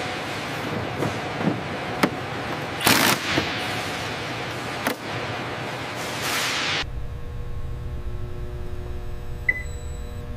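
Hangar work noise: an even hiss with scattered clicks and a louder knock about three seconds in. About two-thirds of the way through it gives way abruptly to the low electrical hum of a test rig, with several steady tones and a single short beep near the end.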